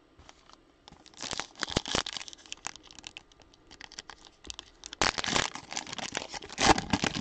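Plastic wrapper of a 2021-22 Donruss basketball card pack being torn open by hand: crinkling and tearing in fits and starts, loudest about five seconds in and again near the end. The wrapper is stubborn and takes several pulls to open.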